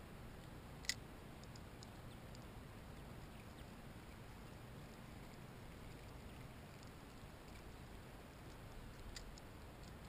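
Faint, steady low background noise with one sharp click about a second in and a few faint ticks near the end.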